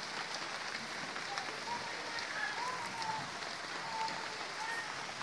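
Steady hiss of rain falling, with a few faint, brief distant voices.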